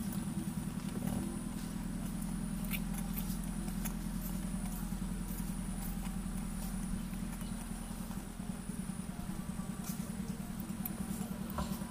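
A small engine running steadily, a low hum with a fast, even pulse, with a few faint clicks over it.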